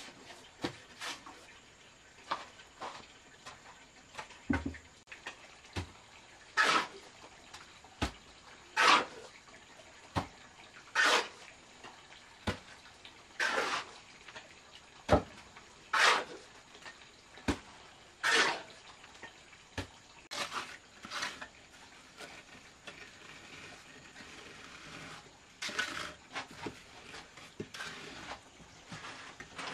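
Small steel trowel scooping wet cement mortar and dropping it in lumps onto a wooden board, a wet scrape and slap about every two seconds. Near the end, softer continuous scraping as the mortar is spread across the board.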